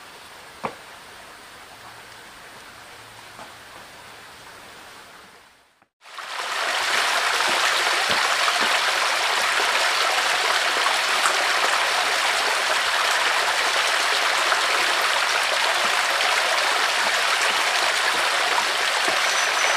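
A small forest stream running over rocks: faint at first with an odd knock, then, after a break about six seconds in, a loud, steady rush of water cascading down the rocks close by.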